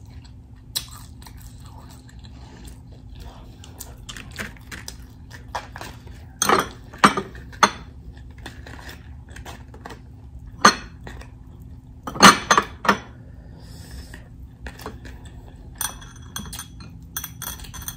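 Irregular clinks and knocks of hands and rings against glass bowls and a serving plate while filling hard taco shells, with louder clatters about six to eight seconds in, near eleven seconds and around twelve to thirteen seconds.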